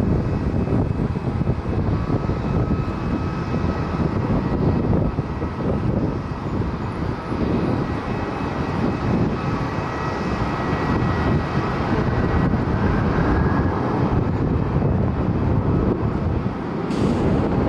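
WestJet Boeing 737-800's CFM56 jet engines at high power on the takeoff run: a steady, loud rumble with a high fan whine running through it.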